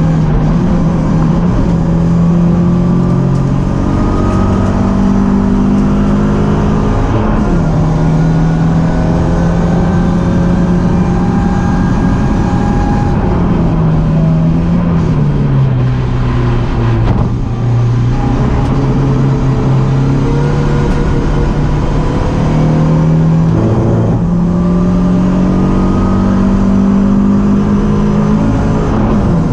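BMW 318ti Cup race car's engine under hard load, its pitch climbing steadily and then stepping down or jumping at gear changes several times, with a lower-revving stretch in the middle.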